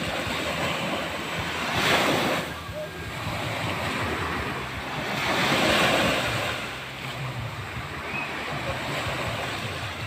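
Small waves breaking and washing up on a sandy beach, the surf swelling twice, about two seconds in and again around six seconds in, with wind on the microphone.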